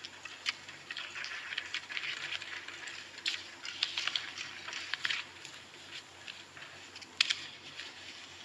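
Scattered applause from a crowd: a dense patter of many hand claps that swells and fades, with a few louder single claps about three seconds and seven seconds in.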